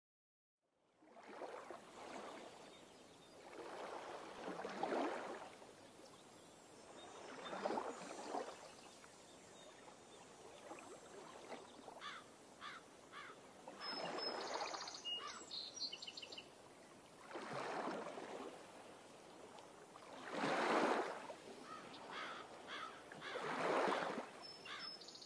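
Sea waves washing in, swelling and fading about every three to four seconds.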